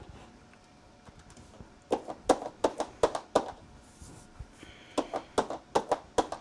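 Computer keyboard typing: two short runs of quick key clicks, each lasting about a second and a half, with a pause between them.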